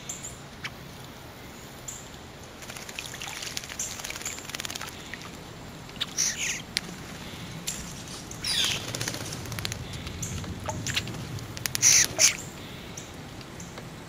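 Eastern bluebirds bathing in a shallow bird bath: scattered bouts of light splashing and wing-fluttering in the water. A quick pair of splashes a little before the end is the loudest.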